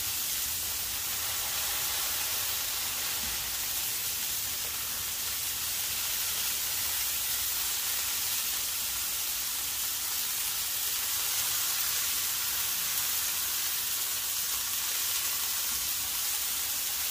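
Smash burger patties sizzling steadily on a hot Blackstone flat-top griddle, a constant frying hiss.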